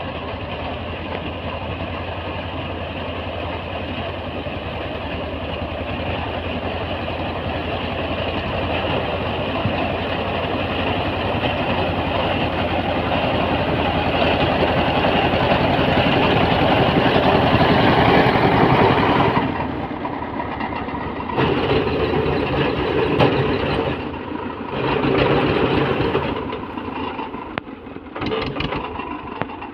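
Escorts 335 tractor's three-cylinder diesel engine running under load as it drives a front-mounted reaper cutting wheat, getting louder as it draws near. In the last third the sound breaks off and restarts abruptly several times.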